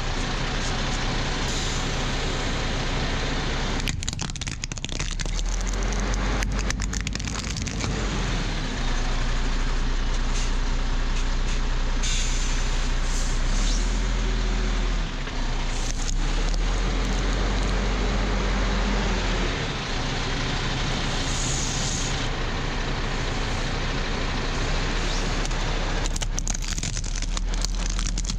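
A heavy truck's engine running at a steady low rumble as the truck creeps forward and its tyre rolls over plastic toys. Brief sharp cracks of plastic breaking come several times.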